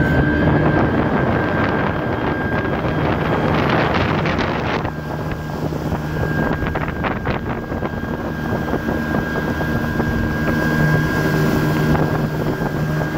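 Rebuilt 115 turbojet engine of a Boston Whaler skiff running steadily under way, with a steady high whine over the engine note; running well on its first test run. Wind buffets the microphone briefly about four seconds in.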